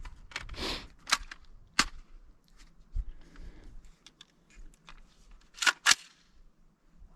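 Sharp metallic clicks and clacks of an AR-15 rifle being handled and readied, including a quick pair of clacks near the end. This is typical of charging the rifle or working its controls before a drill.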